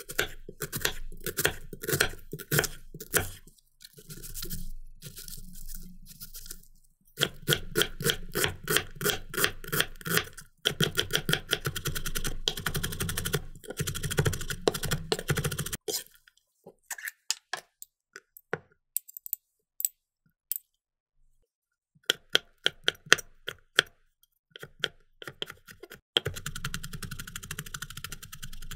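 Chef's knife slicing and mincing onion on a wooden cutting board: crisp crunches through the onion and quick runs of knife taps on the board, with short pauses. Near the end the chopping moves on to jalapeño.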